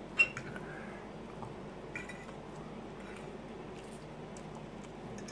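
Metal fork clinking against a ceramic plate while cutting food: one sharp clink just after the start, then a few faint taps, over a low steady background hum.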